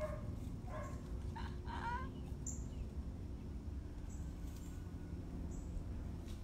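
A puppy gives a few short, high whines in the first two seconds, over a steady low hum.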